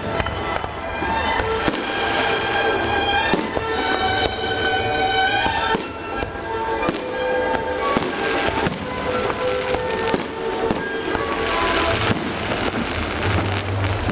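Fireworks bursting overhead: a string of sharp bangs at roughly one a second, with stretches of crackling about the middle and again near the end. Music plays loudly underneath.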